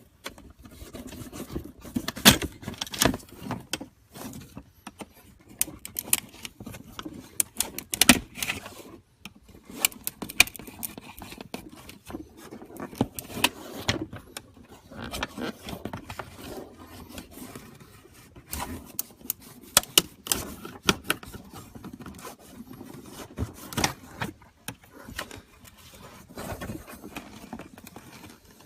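Hand-tool work prying and separating a Mustang hood vent from its plastic backing plate: irregular scraping, clicks and rattles.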